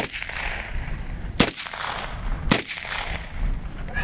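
Three shots from a Type 14 Nambu pistol in 8mm Nambu, about a second apart, each echoing briefly. Then the pistol stops firing because it has failed to cock its firing pin.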